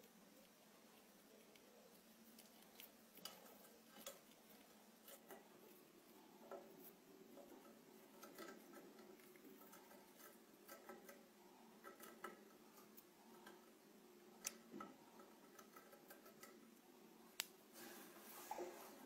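Near silence with faint scattered clicks and a few short, soft chirps from a budgerigar moving about its wire cage.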